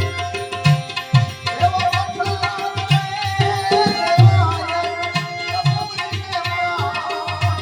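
Instrumental passage of Gujarati bhajan music: a tabla beats a steady rhythm under a held note and a wavering melody line that comes in about a second and a half in.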